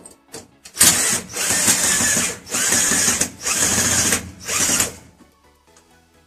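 A power tool running in about five short bursts, each under a second, with brief pauses between.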